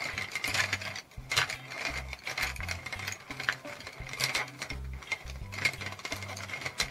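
Wooden coloured pencils clattering and rattling against one another and the pot as a hand stirs through them, a rapid run of light clicks.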